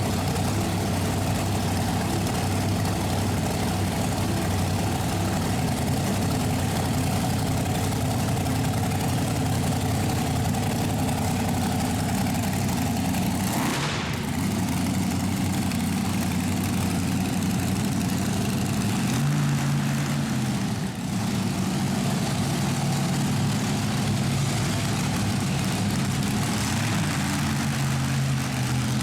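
Monster truck engine running steadily at low revs, not pushed hard because the truck is damaged, with a brief change in the sound about halfway through.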